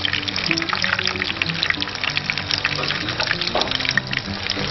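Breadcrumbed tailor fillets shallow-frying in hot oil in a pan: a dense crackle of sizzling and spitting. Background music plays along with it.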